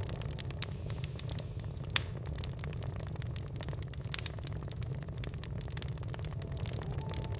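Wood fire in a fireplace crackling: scattered sharp snaps and pops over a steady low rumble, with one louder pop about two seconds in.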